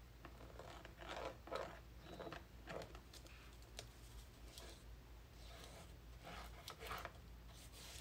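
Faint, scattered rustling and crinkling of fabric and paper handled while fabric is glued into a book cover with a plastic squeeze bottle of glue. A few short rustles come about a second in, around three seconds and near seven seconds.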